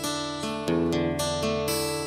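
Acoustic guitar strumming chords in the instrumental intro of a song, a fresh strum every half second or so.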